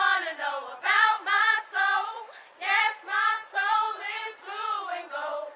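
Female singing with no instruments: a high melody sung in short syllables and phrases, the notes wavering slightly.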